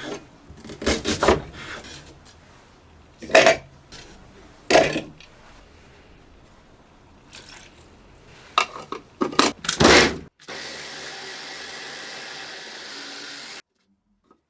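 Kitchen handling sounds: several short knocks and scrapes of utensils or dishes, the loudest cluster just before ten seconds in. They are followed by about three seconds of steady, even noise that stops suddenly.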